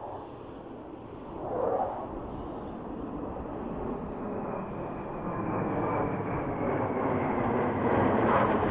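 Formation of F/A-18 Hornet and Super Hornet twin-engine jets passing overhead, a rushing jet roar that grows steadily louder as they approach, with a faint high whine slowly falling in pitch in the second half.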